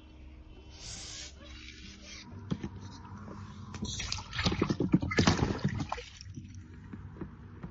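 Water splashing as a freshly caught crucian carp thrashes, in a burst of rapid splashes from about four to six seconds in.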